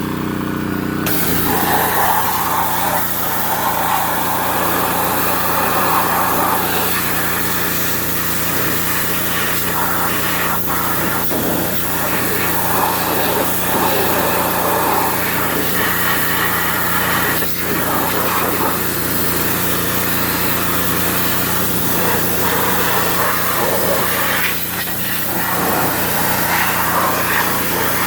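Pressure washer's small engine running steadily, with the high-pressure spray hissing on from about a second in and continuing.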